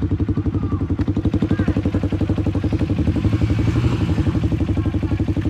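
Trail motorcycle engine running steadily at low revs, its firing pulses a fast, even beat.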